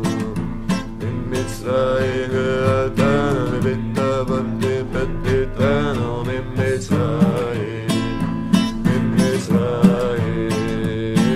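A man sings to a strummed acoustic guitar.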